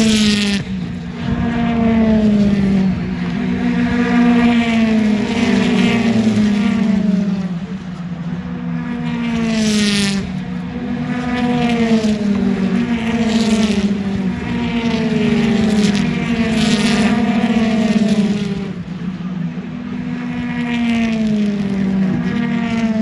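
British Touring Car Championship race cars passing one after another at speed, each engine note falling in pitch as it goes by, over a steady haze of engine and tyre noise.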